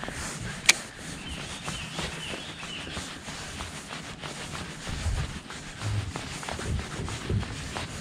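A baitcasting reel being cranked to retrieve a lure, with a sharp click about a second in and light ticking as it turns. Birds chirp in the background, and there are a few low thumps in the second half.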